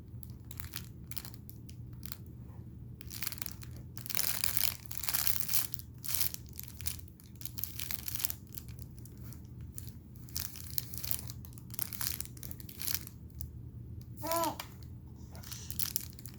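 Irregular crinkling and rustling, like something crumpled being handled, over a low steady hum. Near the end comes one short, high vocal sound.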